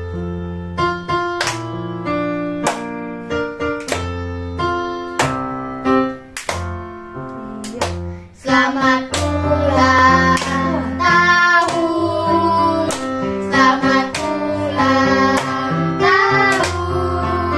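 Electronic keyboard music playing a tune with chords. About eight seconds in, children's voices join, singing along over it.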